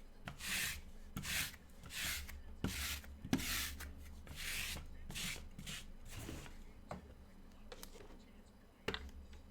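Cardboard trading-card boxes being slid and rubbed against each other on a tabletop while they are shuffled: about nine short rubbing scrapes in quick succession, then a few light clicks and taps.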